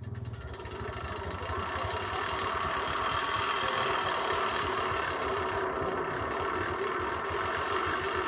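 Homemade cable winch with a bicycle-wheel pulley running as a load of custard apples comes down the cable: a steady mechanical whirring with a fast rattle, getting louder over the first couple of seconds.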